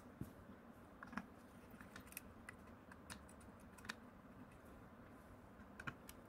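Faint, irregular clicks and ticks of a small hand screwdriver turning screws out of a 3D-printer module's metal housing, about six light clicks spread across a few seconds.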